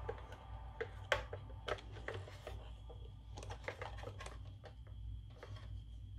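Irregular light clicks and taps of a plastic toy garbage truck being handled and turned around in the hands.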